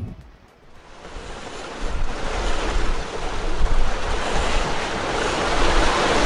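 Sea water rushing and splashing along a sailboat's hull as it sails through choppy water, with wind buffeting the microphone as a low rumble. The rush swells over the first two seconds and then stays steady.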